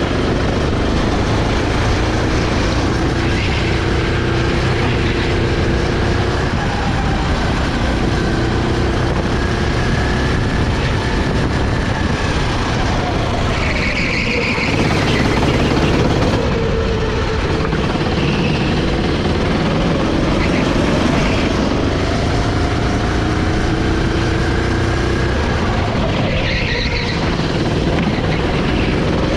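Sodi SR5 rental kart's 390 cc four-stroke single-cylinder engine running hard, its pitch falling as the kart slows for corners and rising again as it accelerates out, twice dipping deeply, in the middle and near the end.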